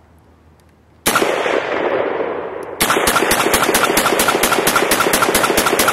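Gunfire: one loud shot about a second in with a long rumbling tail, then from near the three-second mark a rapid burst of automatic fire, about six shots a second, that keeps going.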